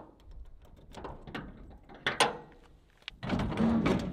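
Metal clicks and clunks as a padlock is unlocked and taken out of a stainless steel lock box. Near the end comes a longer, louder rattling scrape as the steel shipping-container door is swung open.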